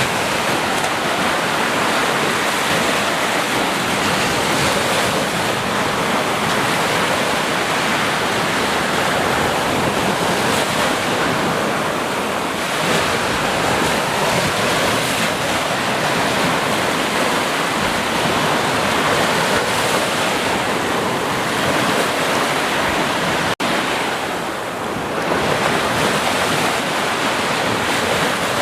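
Ocean surf: a steady wash of waves breaking, with wind noise on the microphone. A split-second dropout comes near the end, then the surf picks up again.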